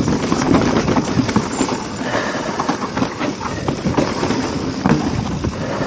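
Mountain bike riding over a rough dirt trail: tyres crunching on dirt and stones and the bike rattling with many quick knocks over bumps.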